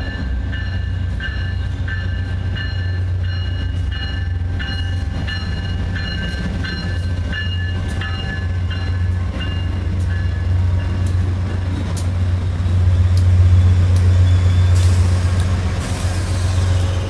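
Amtrak GE P42DC diesel locomotive pulling into the station past the platform, its engine rumbling low. Its bell rings about twice a second, fading out after about ten seconds. The engine and wheel noise grow louder as the locomotive passes close, about twelve seconds in, and a hiss rises near the end.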